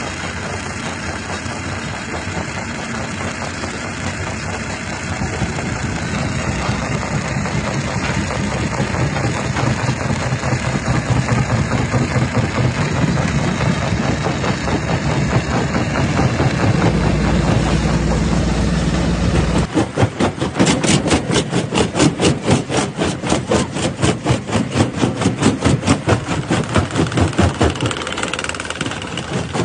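Rock crusher machinery running loudly and steadily. About two-thirds of the way in, a rapid, even pounding of about five beats a second sets in and runs on for several seconds.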